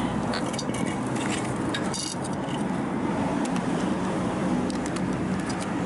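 Worn alternator bearing from a Daihatsu Mira Van, spinning with a steady rattling, grinding noise. The bearing has failed, and this is the cause of the van's abnormal rattle.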